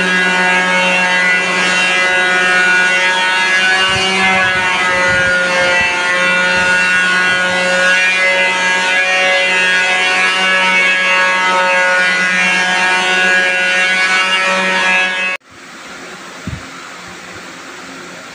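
A loud, steady machine hum of fixed pitch with a few low thumps, cutting off suddenly near the end and leaving a quieter, even fan-like hiss.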